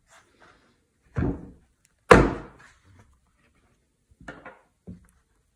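Knocks and thuds of an iPad Pro being fitted into the recess of a Sketchboard Pro drawing board: a dull thump about a second in, a louder, sharper knock a second later, then a few light taps.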